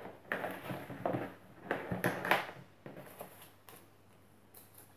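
Handling noise: the electric hair clippers and their cord being moved about and set down on a cardboard-covered table, then the paper instruction leaflet rustling as it is picked up. The scrapes and rustles are irregular, busiest in the first half.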